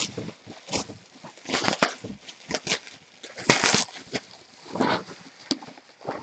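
Bubble wrap crinkling and rustling in irregular bursts as hands unwrap a framed item from it.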